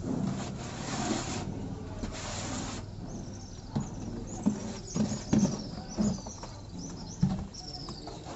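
A hand tool scraping across a textured wall in a few strokes. From about three seconds in come repeated short, high chirps falling in pitch, with a few low knocks.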